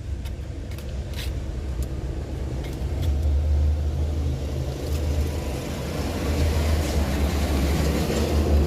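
A motor vehicle engine running steadily with a low rumble, with a few light clicks in the first couple of seconds and a hiss that grows louder over the second half.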